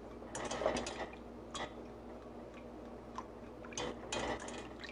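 Metal whisk clicking and scraping against the sides of a small stainless saucepan of liquid being stirred, in a few short clusters of light clicks.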